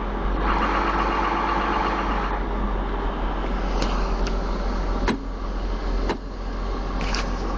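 Case 450 tractor's diesel engine idling, a steady low drone heard from inside the cab, with a few sharp clicks in the second half.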